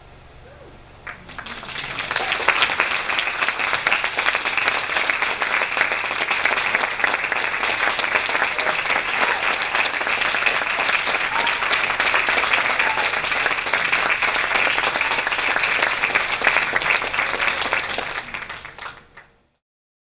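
Audience applauding: clapping starts about a second in, quickly builds to a full, steady round of applause, and fades out near the end.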